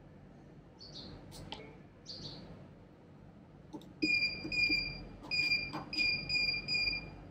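Electronic keypad of a building-entrance door intercom beeping as its buttons are pressed: about seven short beeps of one steady pitch in quick succession, each with a faint click, starting about four seconds in.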